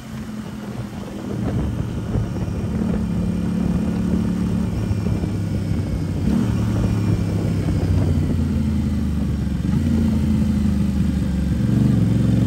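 Aprilia RS 660 parallel-twin engine running through a cheap aftermarket exhaust while riding at a steady cruise. The engine note builds over the first couple of seconds and breaks briefly about six seconds in.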